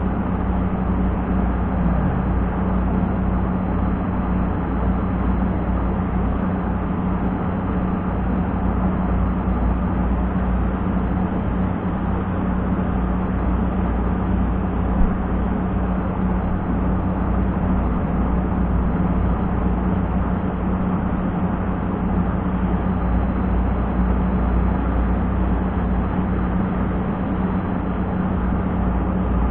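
Wind rumbling on an action camera's microphone, with a steady low hum underneath and one brief tap about halfway.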